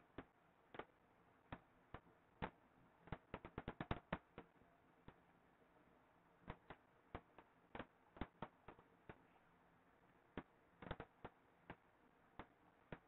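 Irregular sharp clicks and taps against near silence, with a quick run of them about three to four seconds in and a few more around eleven seconds.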